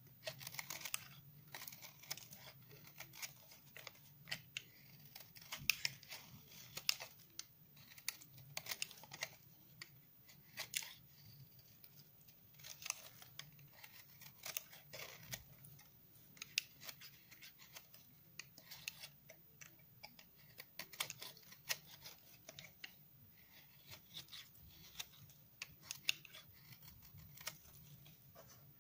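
A snap-off utility knife blade shaving curls off a hard, long-dried bar of 72% laundry soap: an irregular run of sharp, dry crackling scrapes and crunches as each curl peels away.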